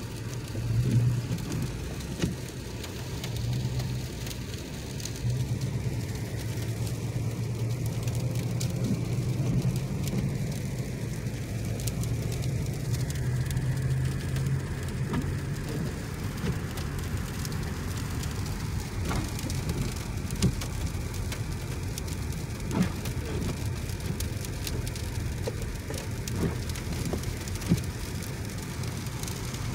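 Sleet pellets ticking on a car's windshield and body, heard from inside the cabin, with scattered sharp clicks. Under them is the steady low hum of the car on the road, stronger in the first half and easing off about halfway.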